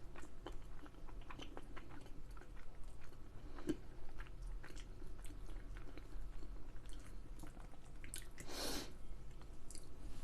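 A person chewing and biting food close to the microphone, with many small wet mouth clicks. A brief rush of noise comes about eight and a half seconds in.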